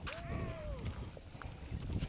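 A landing net holding a bass is swung out of the water and onto a boat deck: water dripping and splashing off the net, with a few light knocks and wind on the microphone.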